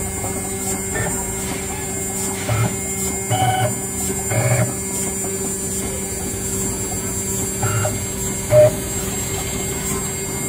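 Small CNC router milling PCB traces: a steady motor hum, broken every second or so by short pitched whines as the axis motors move.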